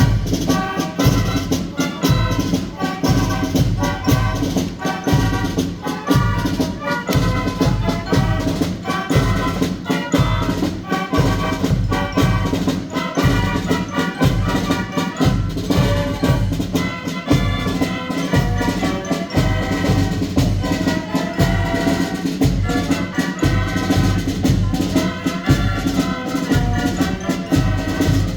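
Brass band playing a march-like tune: trumpets and trombones over a steady drum beat.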